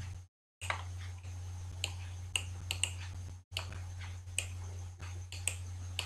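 Computer mouse clicking, a dozen or so short irregular clicks, over a steady low electrical hum.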